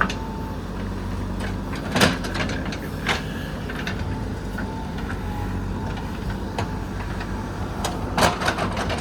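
JCB 3DX backhoe loader's diesel engine running steadily, with several sharp knocks from the machine at work: a loud one about two seconds in and a quick cluster near the end.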